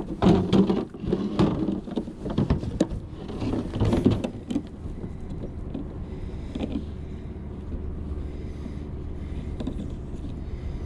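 Close handling noise for about the first four seconds: clothing rustle and short knocks as a fish stringer cord is worked by hand. After that it settles into a steady low rumble of wind and water.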